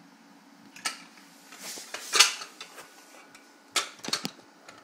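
Hard plastic Mega Bloks toy car pieces clacking and knocking together as a toddler tries to fit a part on: a handful of sharp clicks, the loudest about two seconds in and a quick few more near the end.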